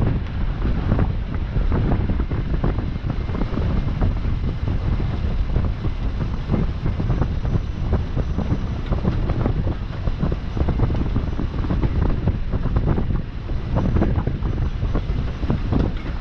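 Wind blowing across the microphone: a loud, constant low rumble with rapid crackling gusts.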